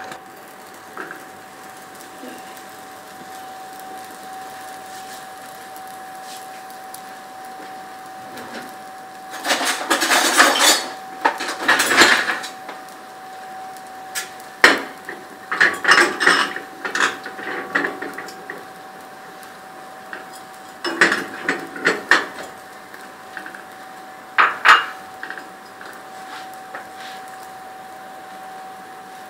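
A spoon and other kitchen utensils clinking and scraping against a flat tawa griddle and a bowl, in several short bursts, over a faint steady hum.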